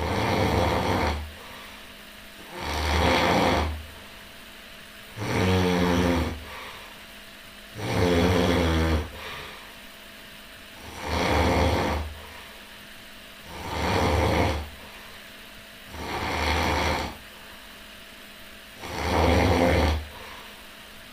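A person snoring loudly and regularly, one snore about every two and a half seconds, eight in all. Each snore is a raspy rattle about a second long, and a couple have a buzzing, pitched tone.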